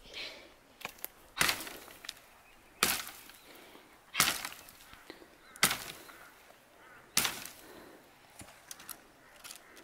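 An axe chopping into a dry, dead tree branch: five sharp blows, about one every second and a half, with smaller cracks and ticks of wood between them.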